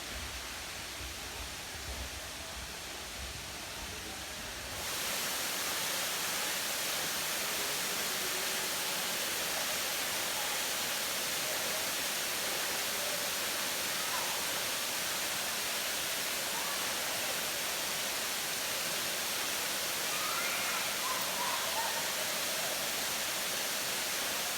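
Steady rushing of a waterfall. It gets abruptly louder and brighter about five seconds in, with a low rumble under it before that.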